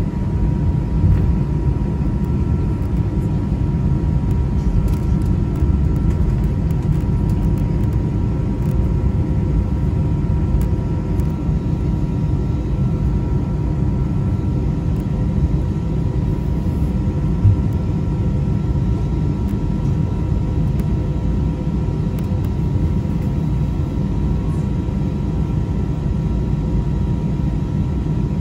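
Airbus A320 cabin noise heard from the front row: a steady low rumble with a steady high whine over it. There is a single brief thump about two-thirds of the way through.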